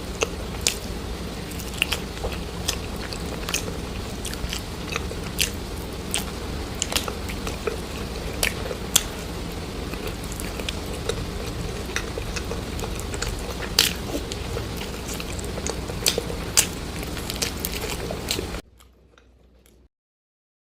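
Close-miked biting and chewing of crunchy food, with many sharp crunches. It cuts off suddenly near the end.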